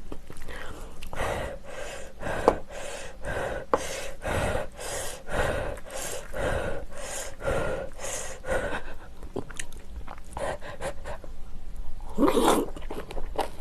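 Close-miked chewing of kimchi, a steady wet crunching at about two chews a second, with a short louder sound near the end.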